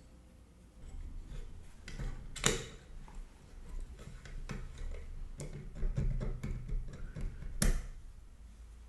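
Small metal parts of a Leatherman Wave+ multitool clicking and tapping as it is taken apart, with two sharper clicks about two and a half seconds in and again near the end.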